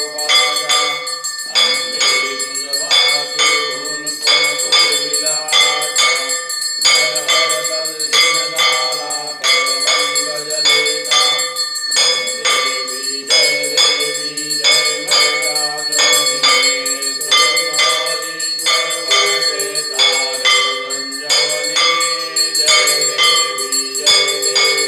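Temple hand bell (ghanta) rung continuously in rapid, even strokes for the aarti, its high ringing tones sustaining between strikes. A melody runs underneath.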